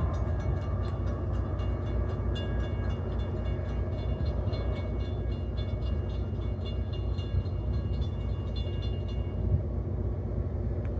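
Diesel-hauled exo commuter train approaching the station, a steady low rumble throughout. Above it, a fast, high ringing that stops about nine seconds in.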